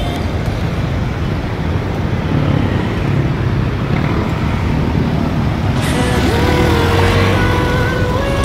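Motor scooter riding through city traffic: a steady low engine, road and wind rumble. Steady musical tones come in near the end.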